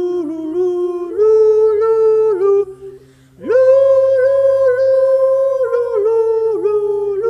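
A man's voice humming a wordless tune in long held notes. It breaks off briefly about three seconds in, then swoops back up into a higher held note.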